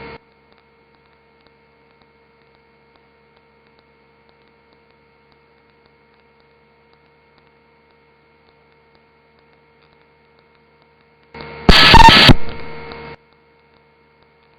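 Faint steady electrical hum on the radio audio, near silent otherwise. About eleven seconds in, a short loud burst of radio noise lasts under two seconds.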